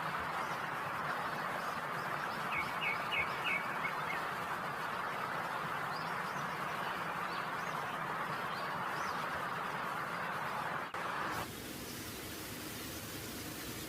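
Chicken drumsticks deep-frying in hot oil: a steady sizzle. About eleven seconds in it changes abruptly to a quieter, thinner sizzle.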